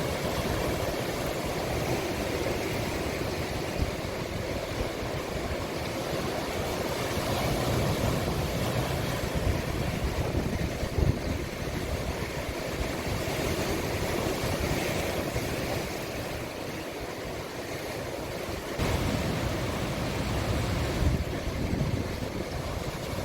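Sea waves breaking and washing in a small cove, a steady wash of surf that swells and eases, with wind buffeting the microphone.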